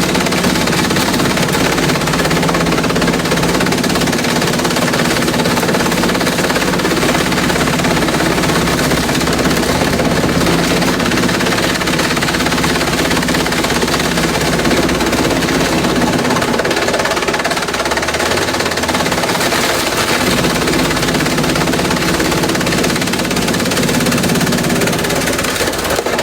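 Industrial bamboo shredder running under load: a steady engine tone under a dense, rapid crackle of bamboo being chewed up and splintered. The low engine note briefly drops out about two-thirds of the way through.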